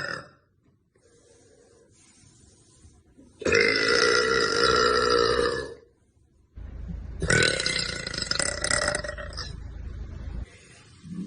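A young woman belching: the tail of one belch at the very start, then two long, drawn-out belches, the first about three and a half seconds in and lasting over two seconds, the second starting about seven seconds in over a low hum.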